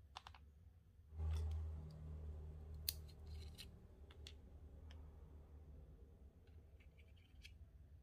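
Faint clicks and handling noises as a small metal magnetic clasp is pulled apart and its halves set down on a plastic cutting mat, and a super glue tube is picked up, with a low rumble from about one second in to about six seconds in.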